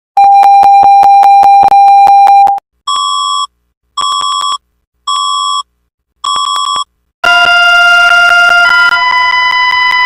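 Electronic mock emergency-alert alarm tones in three parts: a loud, steady buzzy tone for about two and a half seconds, then four short high beeps about a second apart, then from about seven seconds in a loud, steady chord of several alarm tones whose pitches shift slightly near the end.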